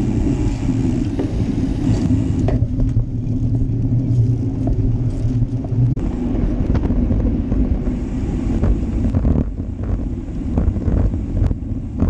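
Wind buffeting and road rumble picked up by the microphone of a GoPro Hero Session mounted on a moving road bike, with occasional short knocks from bumps in the road surface.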